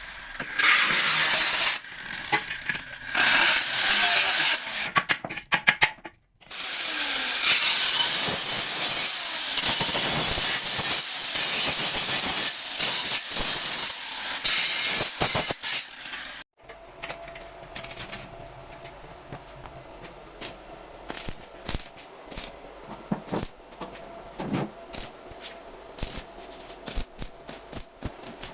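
A power tool working steel, in loud noisy stretches that stop abruptly twice, followed by quieter scattered taps and knocks on metal.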